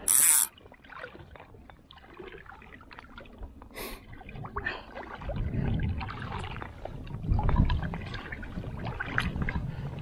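Water splashing and sloshing while a large white-spotted char is played on a fly rod, with a short loud hissing splash at the start, another about four seconds in, and scattered small clicks and knocks.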